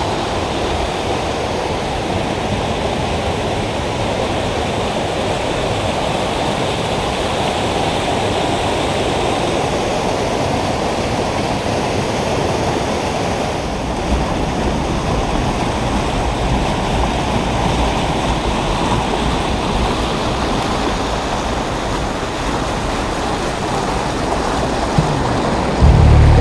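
Mountain stream rushing over rocks and small cascades: a steady whitewater rush.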